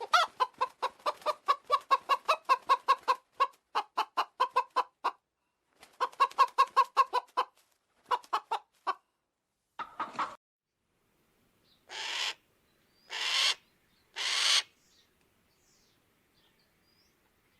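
An animal calling in quick runs of short, clucking notes, about five or six a second, broken by brief pauses. Near the end come three separate breathy hisses, each about a second long.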